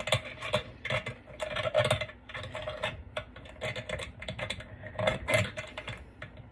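Metal clamp fittings of a reptile heat lamp being handled and tightened by hand: irregular clicks, taps and light scraping, several a second.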